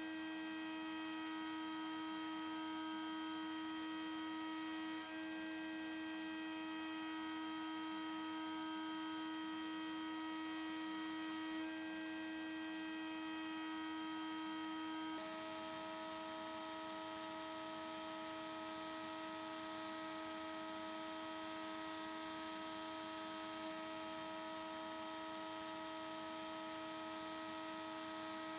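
Steady electrical hum with a clear pitched tone and overtones, shifting slightly in pitch a few times.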